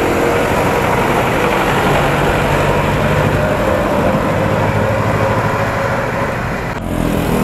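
Road traffic: a jeepney's diesel engine running as it overtakes close alongside and pulls ahead, strongest about midway, over a steady noise of traffic.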